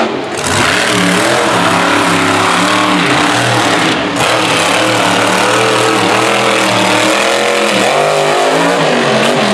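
Monster truck engine revving hard, its pitch climbing and falling again and again. The sound breaks off briefly about half a second in and again around four seconds in.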